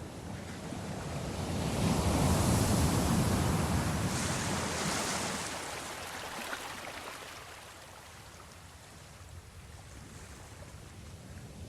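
Ocean surf: a wave swells and breaks about two seconds in, its hissing wash running up, then fades away before the next one starts to build near the end.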